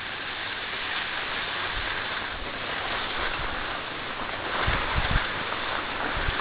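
Steady hiss of skis sliding over groomed, packed snow, with wind buffeting the microphone in a few short low rumbles about two-thirds of the way in and again near the end.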